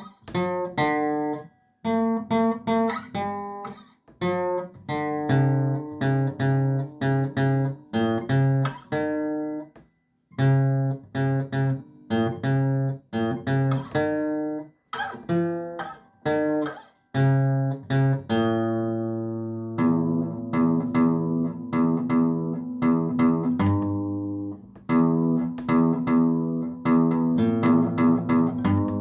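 Guitar played note by note: single plucked notes and short phrases broken by brief pauses. From about twenty seconds in, the notes ring on and overlap into fuller chords.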